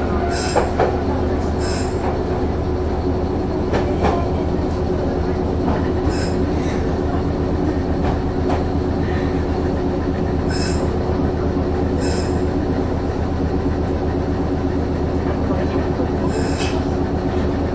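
Meitetsu electric commuter train running on the line, heard from inside the front car: a steady rumble and hum, broken by a few short, sharp clicks from the wheels and rails.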